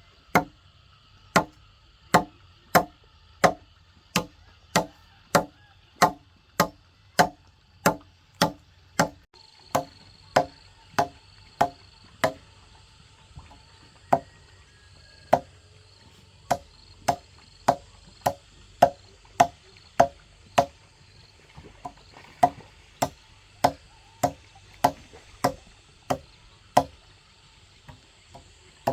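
A blade chopping into wood by hand, sharp strikes about three every two seconds in a steady rhythm, each with a short hollow ring. The chopping breaks off for a few seconds about halfway, then picks up again.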